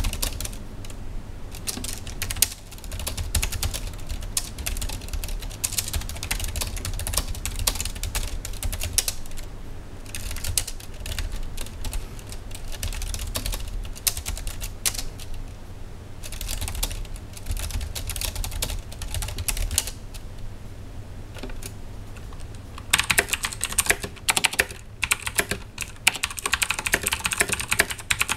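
Fast typing on a computer keyboard: a dense stream of key clicks over a low hum. About 23 seconds in the hum is gone and the clicks become louder and sharper.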